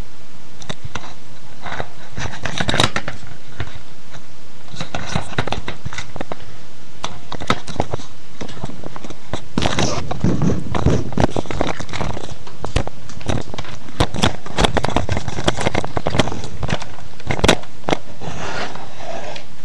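Close rustling and handling noise on a webcam microphone: irregular crackles and clicks, thicker in the middle stretch and toward the end.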